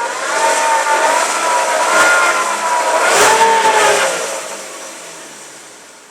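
2010 Chevrolet Equinox engine being revved, its pitch rising and falling a couple of times, then fading over the last two seconds. This is the engine noise the owner links to the A/C.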